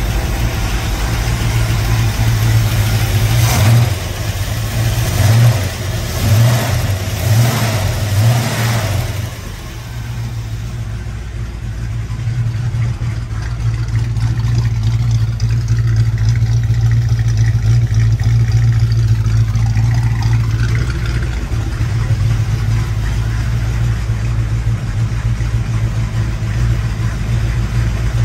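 Freshly rebuilt small-block Chevy 350 V8 with a Howard camshaft running on its first start after the rebuild, gently blipped a few times between about 4 and 9 seconds in, then settling into a steady idle.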